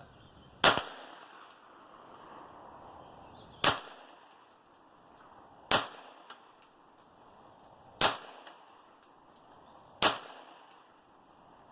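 Semi-automatic .40 S&W pistol-caliber carbine (MechTech CCU conversion on a Glock 22 frame) being fired: five single shots, each two to three seconds apart.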